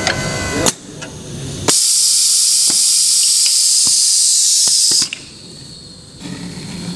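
Compressed air hissing on a Festo pneumatic production station. A sharp click about two seconds in, then a loud steady hiss of air for about three seconds with a few light clicks, cutting off suddenly.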